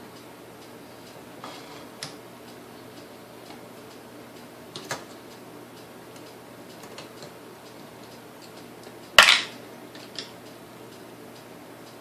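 Scattered light clicks and taps of tools and small parts being handled while a Sunbeam Mixmaster Model 9 motor is taken apart, with one louder clack about nine seconds in, over a faint steady hum.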